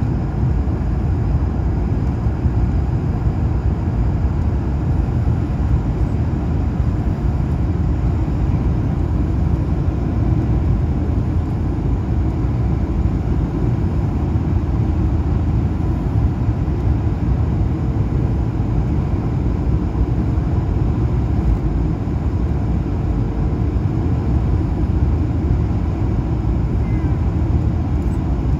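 Jet airliner engine and airflow noise heard inside the cabin by a wing engine during the descent to land: a steady, loud rush, deepest at the low end, with a faint steady whine over it.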